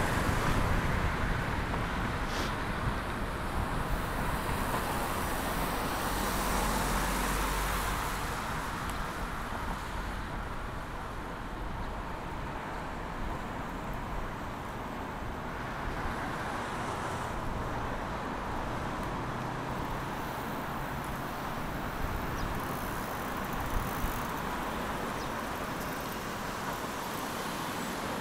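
City road traffic: a steady wash of cars and other vehicles passing, a little louder in the first several seconds.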